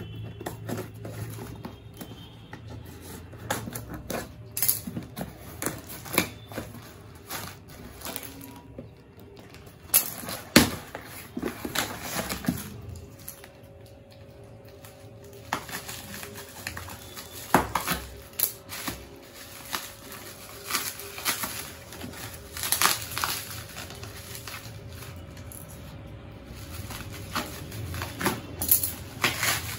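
Scissors snipping through packing tape and bubble wrap, with the plastic crinkling and rustling in irregular sharp clicks.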